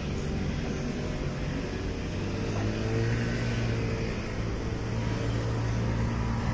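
Street ambience with a motor vehicle's engine running close by, a steady low hum that grows louder about two and a half seconds in.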